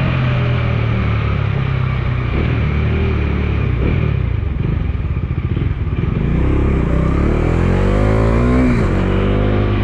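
Bajaj Dominar 250's single-cylinder engine running on the road, accelerating hard through a gear from about six seconds in, its pitch climbing steadily, then dropping sharply near the end as it shifts up.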